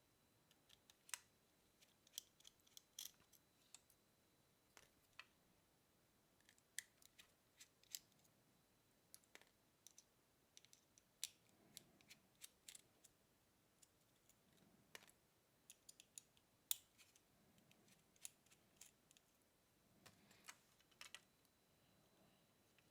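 Faint, scattered clicks and light taps, some in quick little clusters, from hands handling the opened wireless shoulder mic and its circuit board.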